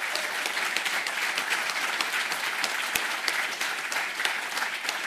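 Audience applauding with many hands clapping, steady throughout.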